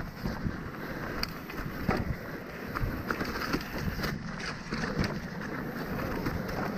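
Mountain bike rolling fast down a rocky dirt trail: tyres crunching over loose stones, with frequent irregular knocks and rattles from the bike jolting over rocks, and wind rushing on the microphone.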